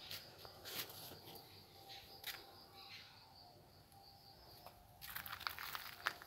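Faint outdoor garden ambience: a steady high-pitched tone with a few scattered chirps and clicks. About five seconds in, footsteps begin crunching on a gravel path.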